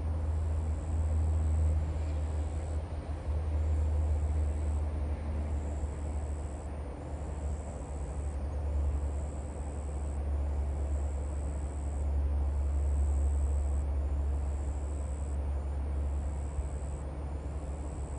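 Wind buffeting the microphone in gusts, with a steady high-pitched insect buzz that breaks off briefly every second or two.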